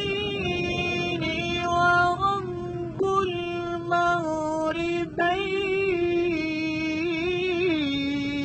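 A man's voice reciting the Qur'an in Arabic in a melodic, chanted style, holding long ornamented notes that waver up and down in pitch, with two short breaks between phrases.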